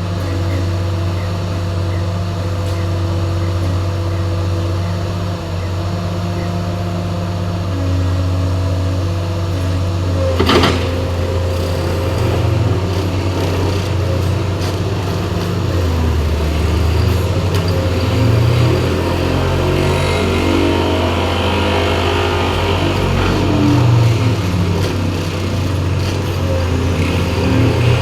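Vehicle engines running steadily, with a low hum that shifts in pitch now and then, and a single sharp knock about ten seconds in.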